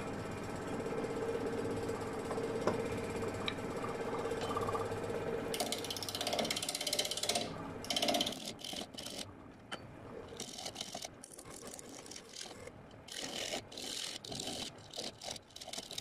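Wood lathe running with a bark-covered log spinning between centres. From about five seconds in, a gouge cuts into the uneven log in short bursts, the chattering cut of roughing it down to a cylinder.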